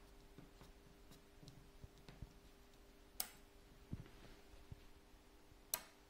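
Faint, scattered clicks and taps of fingers pressing the keys of a 3x4 membrane keypad while a code is entered, with two sharper clicks about three seconds in and near the end.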